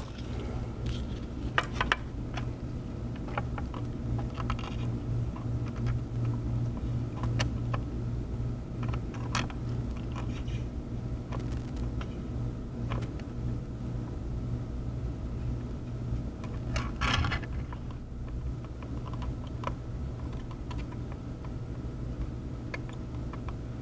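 A steady low electrical hum from bench equipment runs throughout, with scattered light clicks and taps of soldering tools on the board as solder bridges between the charging-port pins are worked. The clearest click comes about 17 seconds in.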